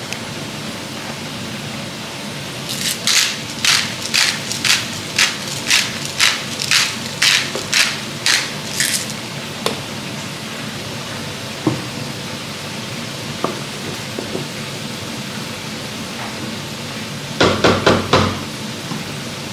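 Hand pepper mill being twisted to grind black pepper into a stew: about a dozen short grinding strokes, roughly two a second, over the steady sizzle of the pan. A short clatter of knocks comes near the end.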